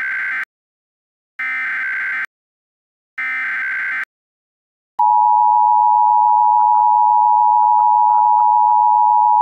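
Emergency Alert System SAME header: three screechy digital data bursts, each just under a second. About five seconds in, the steady two-tone EAS attention signal follows, opening a Civil Danger Warning alert.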